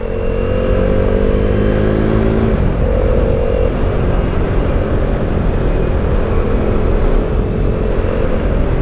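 KTM Duke 390's single-cylinder engine pulling along under way. Its note climbs slowly for about two and a half seconds, then eases off and sinks under a steady rush of wind over the microphone.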